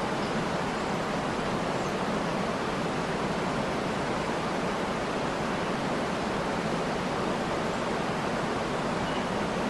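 Waterfall: water falling and splashing in a steady, even rush with no change in level.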